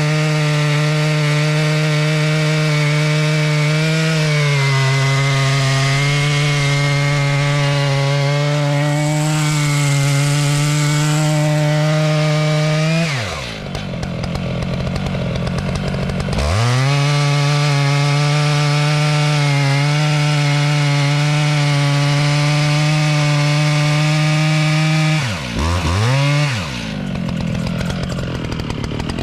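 Two-stroke chainsaw running at full throttle and cutting through wood, its pitch sagging a little under load. About halfway through the throttle is let off and the engine drops to idle, then it is opened up again three seconds later. It dips and revs up once more near the end.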